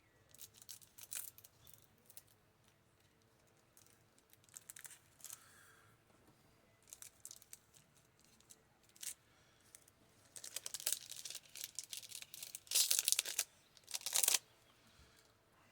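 A Topps Bunt baseball card pack's wrapper being torn open and crinkled by hand: scattered crackles and rasps, busiest and loudest over a few seconds near the end.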